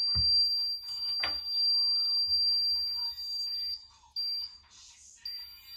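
Steady high-pitched beep from the CDI timing tester's buzzer, sounding because the hub magnet is lined up with the ignition sensor: the signal that the timing is set at 30° before TDC. The beep cuts out briefly about four seconds in and again just after, and a few light knocks come from the tools working on the engine.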